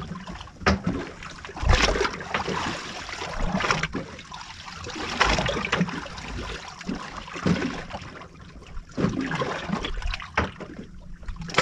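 Water splashing and trickling in uneven surges, with a few sharp knocks.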